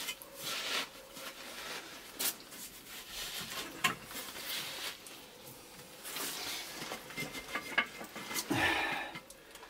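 Hands packing cement mortar under a ceramic squat toilet pan: irregular scraping and rubbing with a few light knocks against the pan.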